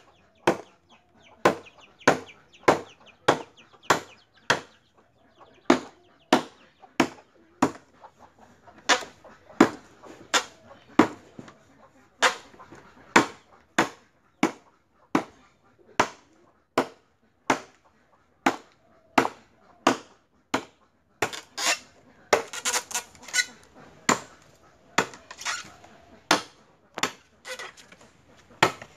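Curved hand blade chopping into a length of green bamboo laid on a wooden block, sharp strokes in a steady rhythm of a bit under two a second.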